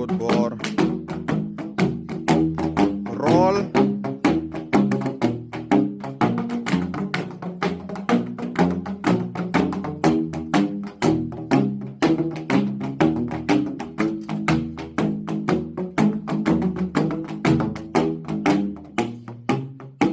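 Bamboo band playing: open-ended bamboo tubes struck in a fast, steady rhythm, giving hollow, pitched low notes that shift in a repeating bass-line pattern.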